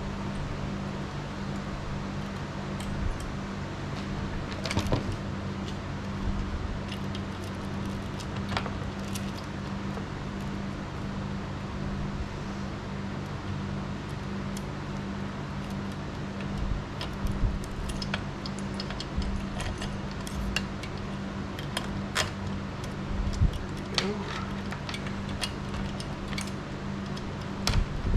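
Light metallic clinks and rattles, scattered and irregular, from a chainsaw's loose chain and parts being handled during reassembly, over a steady fan-like hum.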